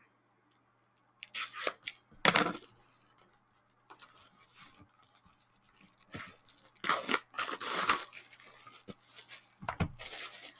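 Wrapping being torn open and crinkled by hand in several short bursts of tearing and rustling, as a desk calendar is unwrapped.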